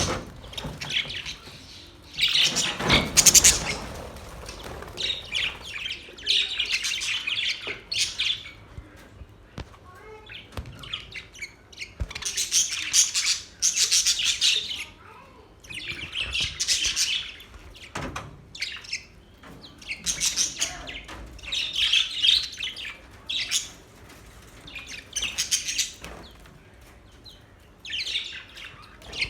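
Several budgerigars chirping and warbling in bursts of high, rapid chatter every few seconds, with the loudest and fullest outburst a few seconds in.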